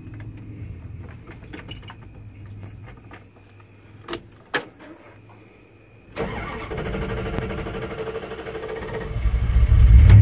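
Two sharp clicks as the key is turned, then a 1988 Dodge Ram D100 V8 being cranked by its starter for about three seconds before it catches and runs, heard from inside the cab. The exhaust runs through a newly fitted Thrush glass pack muffler, not yet broken in.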